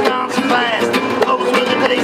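Acoustic folk band playing: strummed acoustic guitars and a fiddle over a cajón beat, with no singing.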